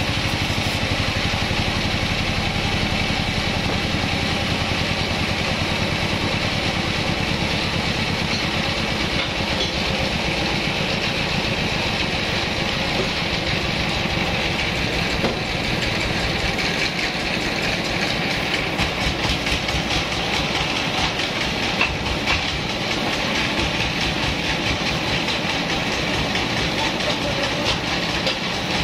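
Horizontal band sawmill running steadily, its motor and blade going without a break, with rattling and clatter from the machine and its log carriage on the rails.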